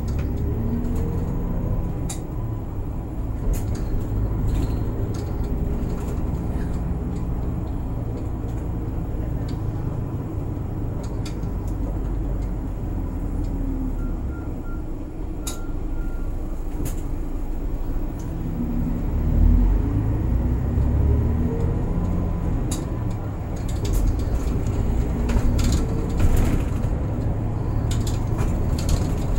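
City bus driving, heard from inside near the front: a steady engine and road rumble, with the engine note climbing several times as the bus accelerates, and scattered clicks and rattles from the bus body.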